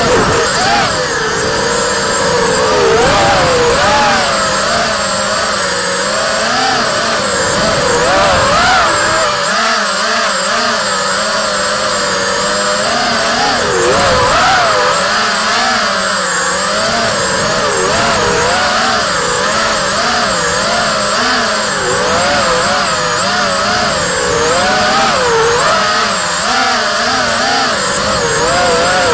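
Racing quadcopter's four Emax RS2205 2300 kV brushless motors spinning three-blade 5-inch props, their whine rising and falling constantly with the throttle.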